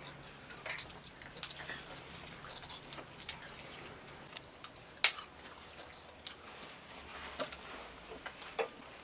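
Hard-boiled eggs knocked tip to tip in an egg-fighting game: scattered light taps and clicks, with one sharp crack about five seconds in.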